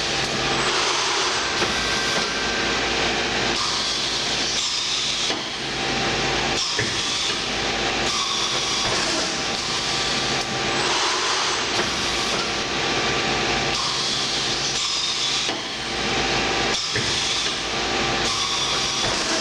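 Sencorp 2500 roll-fed thermoformer running in a repeating cycle: a steady air hiss, with sharp knocks and brief drops in level every few seconds as its air cylinders and trim press work.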